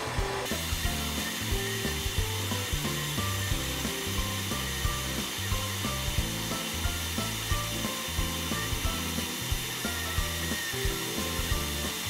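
Atomstack X20 Pro laser engraver cutting wood: the gantry's stepper motors hum in short low tones that jump in pitch as the laser head changes direction along the cut, with light ticks. A steady rushing fan hiss starts about half a second in and carries on under them.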